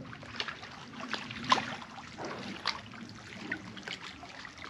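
Footsteps scuffing and crunching over gritty sandstone ledges and dirt, irregular steps roughly one every half-second to second, one louder step about a second and a half in, over a steady low wash of lake water lapping at the shore.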